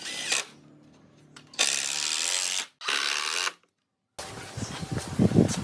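Power tool run in two short bursts, about a second and then half a second long, its motor rising in pitch as it spins up. After a brief break comes a run of irregular clicks and knocks.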